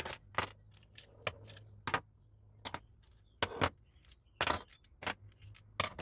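Old metal hand tools (pliers, snips, cutters and a spring balance) being set down one by one on a wooden workbench: about ten sharp metallic clinks and knocks, irregularly spaced.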